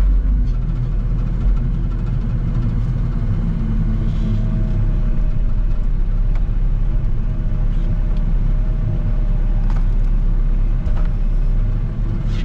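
Tractor engine running steadily with a low, continuous hum.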